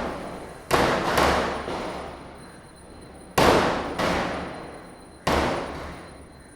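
Diwali firecrackers bursting: five loud bangs, coming roughly in pairs, each dying away over about a second, with a fainter bang near the end.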